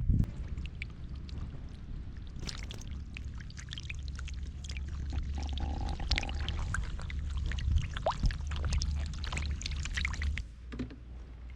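Water splashing and pouring in irregular spurts over a steady low rumble, which drops away near the end.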